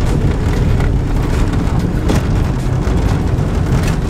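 Car driving, heard from inside the cabin: a loud, steady low rumble of engine and road noise.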